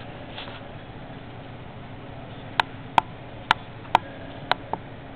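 Small dog cracking sunflower seed shells with its teeth: a run of six sharp crunching clicks about half a second apart, starting a couple of seconds in.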